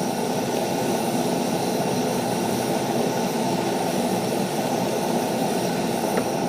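Steady rushing of a camp stove burner running under a pan of fajita meat and vegetables.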